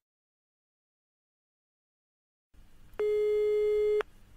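Silence, then a single steady electronic beep about three seconds in, lasting about a second: the signal tone of a listening-exam recording, marking that the message is about to be played a second time.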